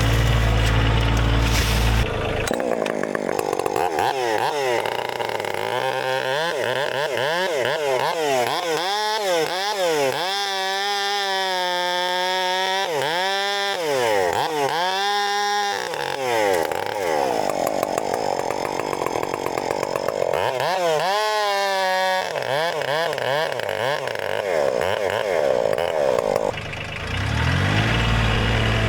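Chainsaw running throughout, its pitch repeatedly rising and falling as it revs up and bogs down in the cut. A deeper, steadier tractor diesel engine is heard at the start and near the end.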